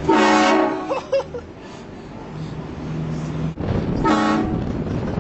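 Train horn blasting twice, each blast a chord of several steady tones. The first lasts about a second; the second comes about three and a half seconds later and is a little shorter.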